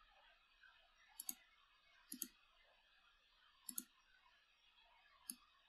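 Computer mouse clicking: four sharp clicks spaced a second or more apart, the first three each a quick double, over near-silent room tone.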